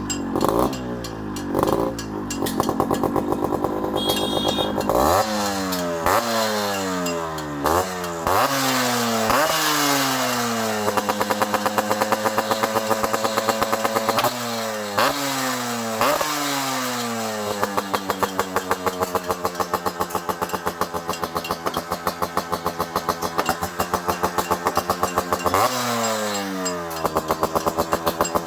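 Yamaha RX-Z's two-stroke single-cylinder engine running loud through an aftermarket expansion-chamber (power chamber) exhaust. It runs low for the first few seconds, then is revved in quick repeated blips and held high for several seconds at a time, dropping back between revs.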